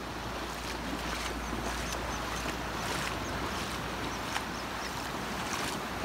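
Steady wash of low surf with wind rumbling on the microphone, and faint short high chirps from birds now and then.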